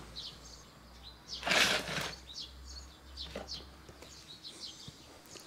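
Small birds chirping in the background, with a short rustle about one and a half seconds in.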